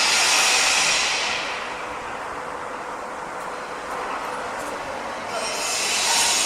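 Construction site noise: a steady mechanical din with a loud high hiss from a machine at work, which fades after about a second and returns near the end.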